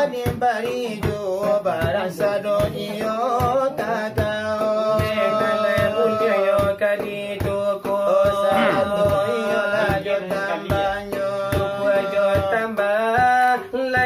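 Selawat dulang: two male voices chanting a long-held, melismatic melody over a quick, steady pattern of finger strikes on large brass trays (dulang).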